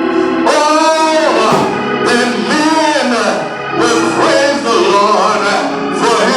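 Gospel music: a voice singing long, bending notes over instrumental accompaniment.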